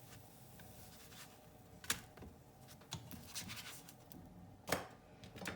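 Light clicks and scraping of kitchen utensils being handled at the pan, with a few sharper knocks about two seconds in and again near the end.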